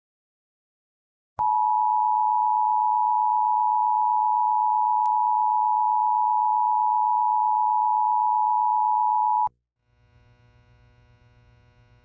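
Emergency Alert System attention signal: two steady tones of 853 Hz and 960 Hz sounding together, loud. It starts abruptly about a second and a half in, holds for about eight seconds and cuts off suddenly, then a faint low hum follows.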